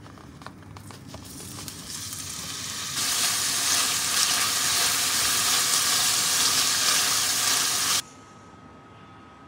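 Beef cubes sizzling in hot oil in a Staub enamelled cast-iron braiser as they are turned with wooden chopsticks. The sizzle grows louder over the first few seconds, holds steady, then cuts off suddenly near the end, leaving a faint steady hum.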